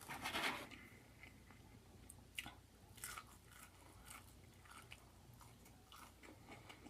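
Close-miked chewing: soft, wet mouth clicks and small crunches, scattered every second or so, after a brief louder burst right at the start.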